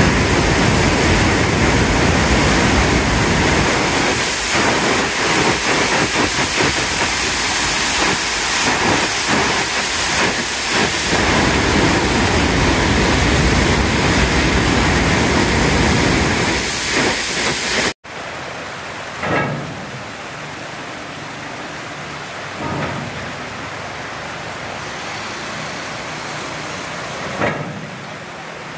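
Floodwater pouring through a reservoir's opened spillway gates and churning downstream: a loud, steady rush of water. About two thirds of the way in it cuts to a quieter, steady flowing noise with a few short swells.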